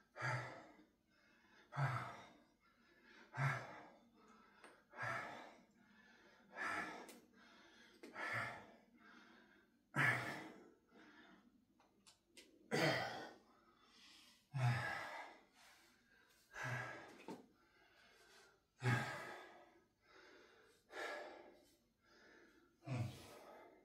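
A man's heavy exhales during press-ups, one voiced outward breath every second and a half to two seconds, spreading out as the set goes on, with a yawn near the end.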